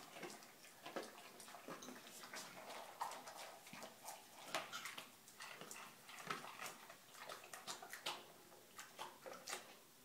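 Boxer dog eating from a stainless steel bowl: faint, irregular crunching and clicking as it chews, with the odd clink against the metal bowl.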